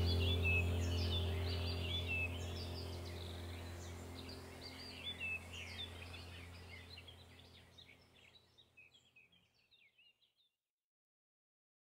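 Many birds chirping over a steady low hum, the whole sound fading out evenly to silence about eight seconds in.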